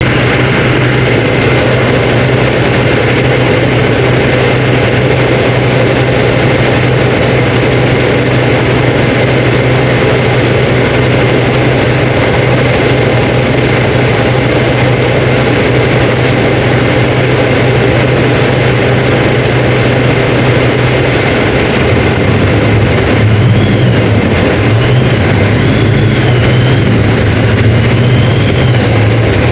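Mercedes-Benz OF 1721 BlueTec 5 bus's four-cylinder diesel engine running with a steady low drone. About three quarters of the way in, the engine note starts to waver and shift, and a faint wavering whine comes and goes.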